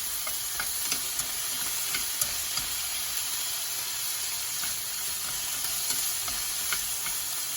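Tomato chunks sizzling in hot oil in a frying pan: a steady hiss with scattered crackles and pops.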